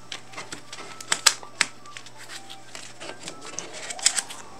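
Square game cards being picked up, turned and set down on a tabletop: a run of light clicks and taps, sharpest a little after a second in and again near the end.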